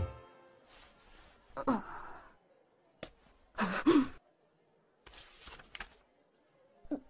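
A young woman's voice sighing twice, about one and a half and three and a half seconds in, with a faint click between the sighs and a soft rustle a little later.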